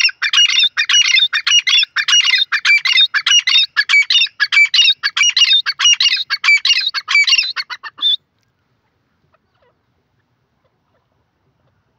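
Grey francolin (teetar) calling: a rapid, loud run of high, repeated notes lasting about eight seconds, then stopping abruptly.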